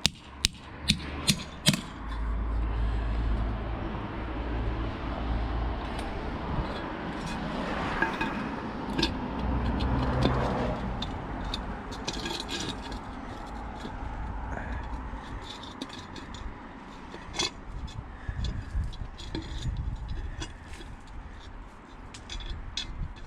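A nail-on bricklayer's G-clamp being moved and fixed to a brickwork profile: a quick run of sharp metal taps and clinks at the start, then scattered clinks and scrapes over a low rumble.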